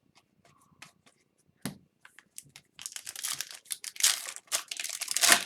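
A few light clicks, then a hockey-card pack wrapper being torn open and crinkled, a dense crackling that runs through the second half and is loudest near the end.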